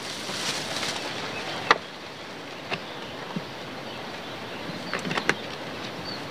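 A plastic bag and a plastic water bottle being handled: rustling, then a few sharp clicks and crackles, over a steady background hiss.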